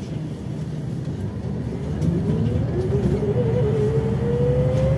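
Interior sound of a Scania OmniLink I city bus pulling away: the diesel engine hum grows louder, and from about two seconds in a whine rises steadily in pitch as the bus gathers speed.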